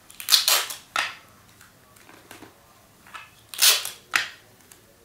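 Paper and scotch tape being handled: short, sharp rasping bursts, a pair about half a second and a second in and another pair about three and a half and four seconds in.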